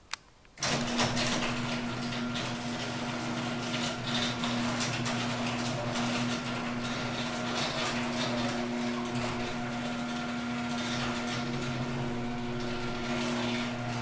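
Access Master 1/2 hp M100 garage door opener lowering the door: a click, then the motor starts about half a second in and runs with a steady hum throughout.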